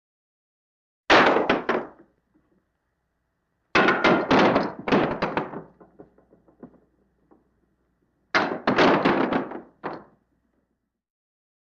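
A ball thrown against a wall, hitting and bouncing several times in quick succession. This happens three times, about a second in, around four seconds in and just past eight seconds, with each run of hits fading out.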